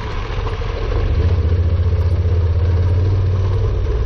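Honda NC700X's 670 cc parallel-twin engine running while the bike rides a gravel track. Its low drone grows louder about a second in.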